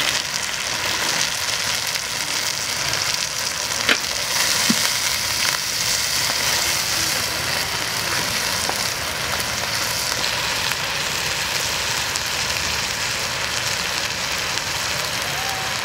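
Snails cooking in a steaming pot over a wood fire, a steady sizzle with a couple of sharp clicks about four seconds in.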